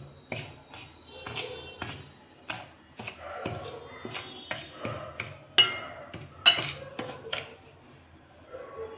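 A metal spoon stirring dry semolina in a stainless steel bowl, scraping and clinking against the bowl, with two sharper clinks about five and a half and six and a half seconds in.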